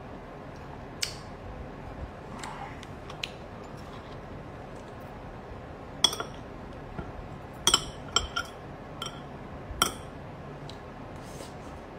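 Metal chopsticks clinking against ceramic bowls while eating: a few soft taps early, then a run of about six sharp, briefly ringing clinks in the second half.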